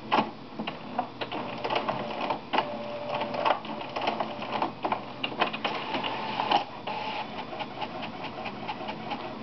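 HP inkjet all-in-one printer working through a print job: a run of clicks and clacks from the paper feed and print-head carriage, with short motor whines in between.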